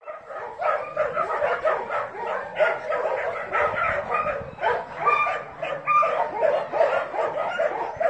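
Dog yipping and whining, short high calls following one another without a break.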